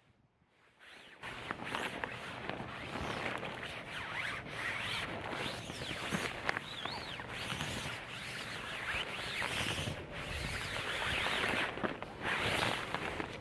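Hands and knees rubbing and shifting on an inflated TPU-coated ripstop-nylon air mat: a steady rustling, rubbing noise with a few short squeaks, starting about a second in.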